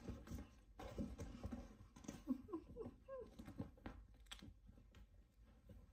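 Cats scuffling and thudding around inside a felt cat donut tunnel, paws scrabbling on the felt and carpet, with a few short pitched chirps near the middle.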